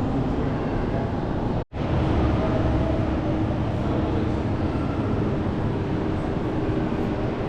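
Steady rumbling noise of a moving vehicle, with faint hum, broken by a momentary dropout about a second and a half in.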